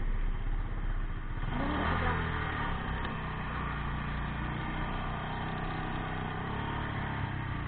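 Off-road buggy engine revving up about a second and a half in, then running steadily under load as the buggy drives through shallow river water.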